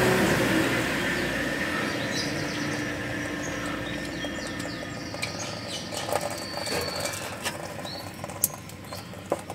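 Scattered light clicks and taps of hand work at the engine's thermostat housing as the coolant temperature sensor is taken out, with faint bird chirps behind. A steady hum dies away in the first couple of seconds.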